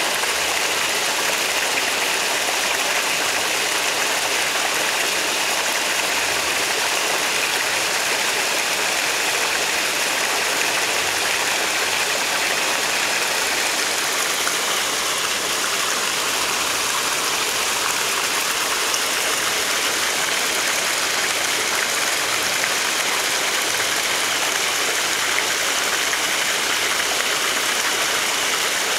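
Steady bubbling and splashing of a goldfish show tank's aeration: air bubbling up from an airstone and water streams pouring into the surface.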